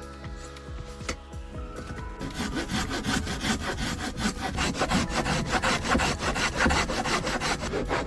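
Hand saw cutting through wood in rapid strokes, starting about two seconds in, with faint background music.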